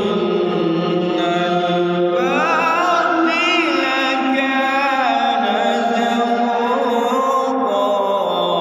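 A single voice chanting one long, unbroken melodic line in Arabic-style recitation, with ornamented runs that rise and fall in pitch. The voice is pushed into its upper range, as in practice for Quranic recitation.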